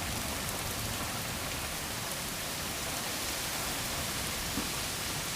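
Heavy rain falling in a flash-flood downpour: a steady hiss.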